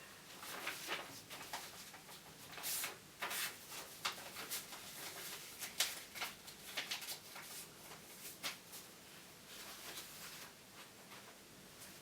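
Irregular soft rustling with scattered light clicks and taps, the sharpest about six seconds in.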